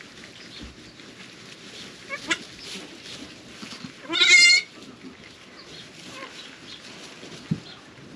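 Newborn goat kid bleating: one loud, quavering cry about half a second long about four seconds in, with a couple of fainter short calls before it. A short low thump near the end.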